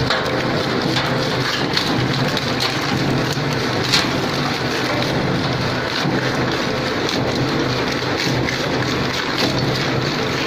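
Industrial shredder running under load, its toothed cutter shafts tearing and crunching scrap in the hopper: a dense continuous crackle over a steady motor hum, with a sharper crack about four seconds in.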